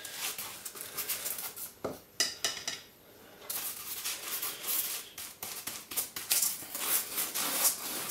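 Paintbrush scrubbing a coat of PVA glue onto a block of expanded polystyrene foam: quick, scratchy brush strokes, with a short lull about three seconds in.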